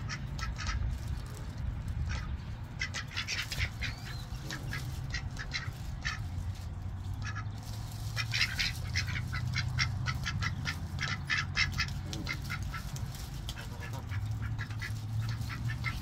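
Ducks quacking in quick runs of short calls, over a low steady hum.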